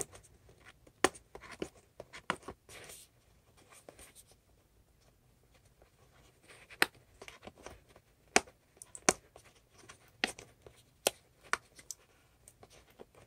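Hands handling and opening a small package for a USB-C cable: scattered sharp clicks and brief scratchy rubbing, with quiet gaps between.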